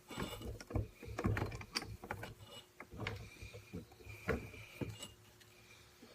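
Small metal tool clicking and scraping against a fork's circlip, a run of light irregular clicks and scratches that stops about five seconds in.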